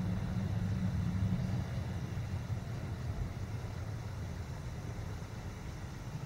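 A low, steady engine rumble that slowly fades.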